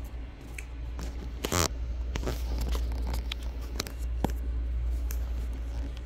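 Soft rustling, scraping and small clicks of handling or movement, with a louder rustle about a second and a half in, over a steady low hum.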